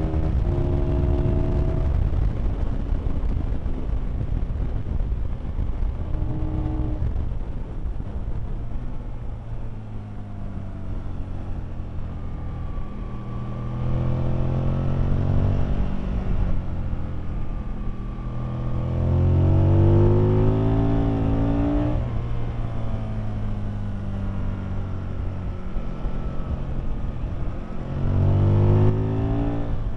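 On-board sound of an Aprilia Tuono's V-twin engine lapping at speed, climbing in pitch under acceleration three times, about halfway in, about two-thirds in and near the end, and dropping back in between.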